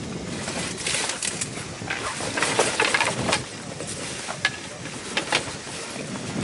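Rustling and crinkling of a liferaft's yellow equipment bag being pulled about and handled, with irregular clicks and knocks, busiest about halfway through.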